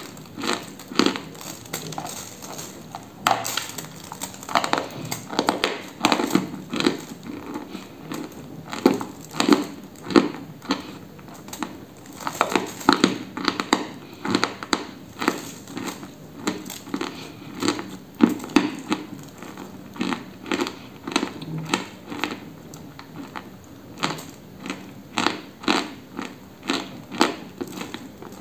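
A chunk of dry white chalk being bitten and chewed: a steady run of sharp, irregular crunches and crumbling.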